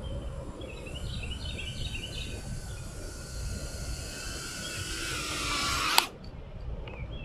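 Birds chirping, then the whine of a small FPV quadcopter's motors grows louder and rises in pitch as it comes close, ending in one sharp knock about six seconds in when the motors cut out as the quad comes down and is disarmed.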